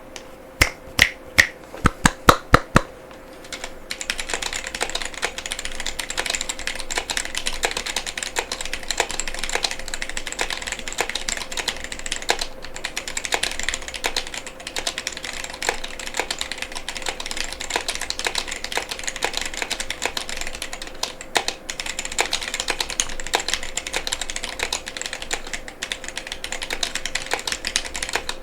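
Womier K87 mechanical keyboard with Gateron Brown tactile switches and PBT keycaps being typed on: about eight loud, separate keystrokes in the first three seconds, then steady, fast typing.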